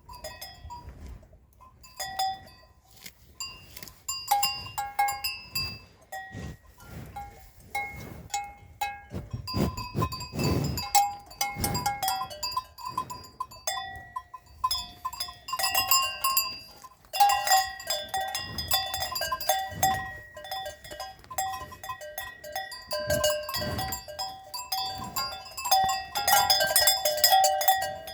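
Bells worn by grazing cattle clanking and ringing at several pitches in irregular strikes, thicker in the second half.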